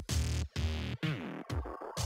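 Background electronic music: synthesizer notes that glide downward over a steady low beat, with brief drop-outs a few times.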